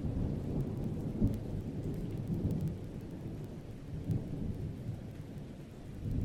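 Thunderstorm: a low rolling thunder rumble over rain, swelling and easing off, dipping near the end.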